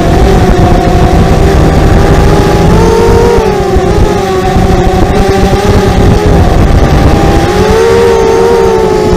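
Brushless motors and 5-inch propellers of a 250-class FPV racing quadcopter (T-Motor MN1806 2300kv), heard from its onboard camera: a steady buzzing whine whose pitch rises with throttle about three seconds in and again near the end, over a heavy low rumble.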